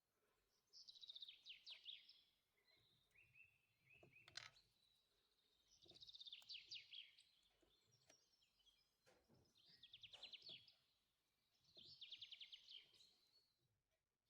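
Faint songbird singing four trilled phrases of rapid, quickly falling notes, repeated every three to four seconds. A single sharp click comes about four seconds in.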